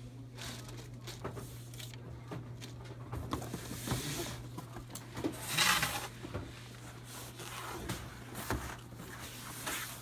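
Cardboard boxes being handled and set down on a desk: scattered knocks and thuds, with a longer scraping rush of a box sliding about halfway through, over a steady low hum.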